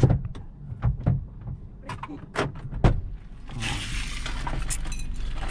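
A car's passenger door being worked from outside: several knocks and latch clicks, then the door swings open about three and a half seconds in and a steady outdoor noise floods into the cabin.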